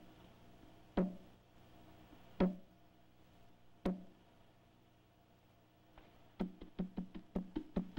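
Soundtrack percussion: single low drum strikes about a second and a half apart, then a faster run of strikes from about six seconds in, over a faint steady hum.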